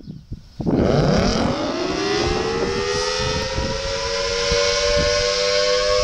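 Federal Signal Thunderbolt 1000T B-series outdoor warning siren starting up: about half a second in its wail begins low and rises steeply in pitch, levelling off into a steady high tone by about three seconds. This is the siren's wind-up at the start of a full-alert test.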